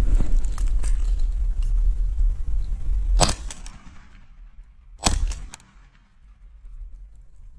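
Rustling and brush noise from walking through cover, then two shotgun shots about two seconds apart, each trailing a short echo.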